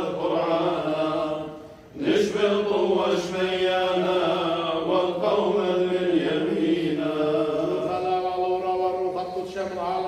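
Male clergy chanting the Assyrian Church of the East liturgy in long, sustained vocal lines, with a brief pause for breath about two seconds in.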